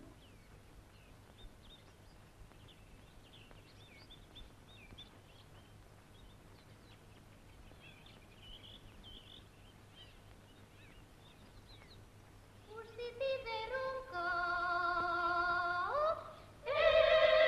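A quiet stretch with faint, short high chirps through the first half. Near the end, folk string music comes in with long held notes from bowed instruments, swelling into a loud sustained note at the very end.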